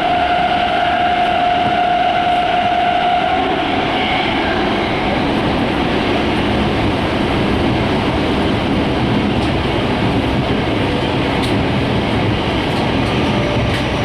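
Tōyō Rapid Railway 2000 series electric train running, heard from inside the car: a steady rumble of wheels on rail, with a steady whine in the first three seconds or so and a few light clicks in the second half.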